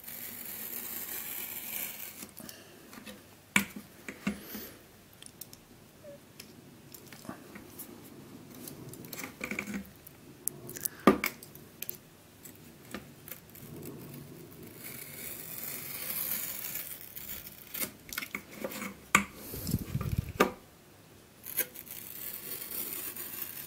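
Utility knife blade scraping and slicing through the tape seal on a stiff clear plastic box, in several long scratchy strokes. Between the strokes come sharp clicks and knocks as the plastic is handled, and near the end a dull low bump.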